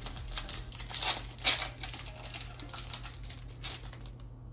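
Foil wrapper of a Pokémon card booster pack crinkling and tearing as it is opened by hand, in irregular rustles with the loudest about a second and a half in.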